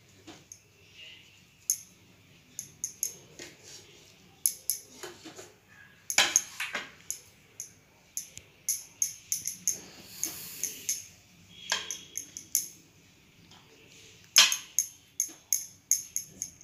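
Steel spoon clinking and scraping against a ceramic bowl while tossing a chickpea salad: irregular runs of sharp clicks with short pauses between them.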